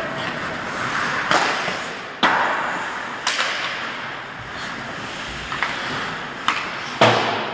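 Ice hockey play: about half a dozen sharp clacks of sticks and puck, the loudest near the end, over a steady hiss of rink noise.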